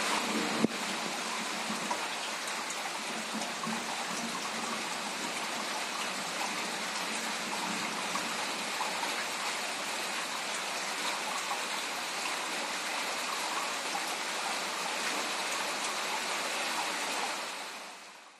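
Steady rain falling, an even hiss that holds without change, with one sharp click less than a second in. The rain fades out near the end.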